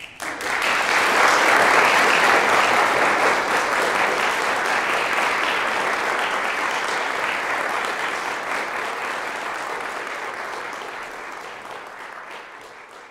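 Audience applauding right after the song's final chord, swelling within the first second and then slowly dying away.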